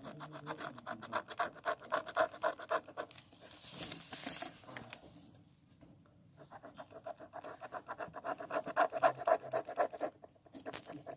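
Pen tip scratching on paper in quick back-and-forth strokes as a line is gone over to make it bolder. The strokes come about eight to ten a second, break off about five seconds in, and start again a second or so later.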